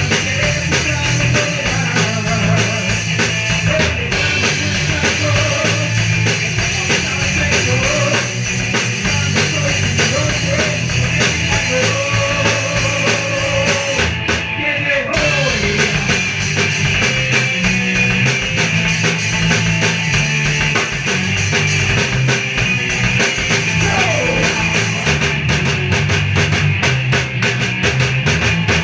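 A ska punk band playing loud and continuous in rehearsal, with a drum kit and electric guitar driving a steady rhythm.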